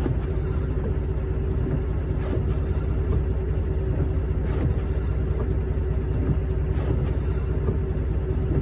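Semi truck driving, heard from inside the cab: a steady low rumble of engine and road noise with a constant hum.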